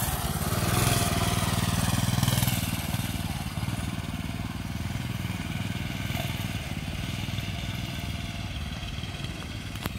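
Minibike's small engine running as the bike is ridden away across a lawn, loudest in the first few seconds and then fading steadily as it moves off.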